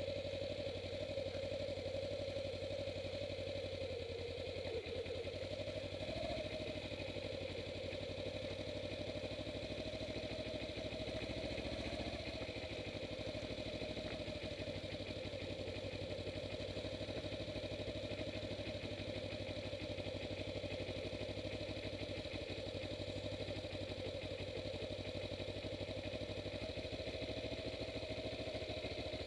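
Kawasaki Ninja 250R's parallel-twin engine running at a steady speed. Its pitch dips briefly about four seconds in and climbs back about two seconds later.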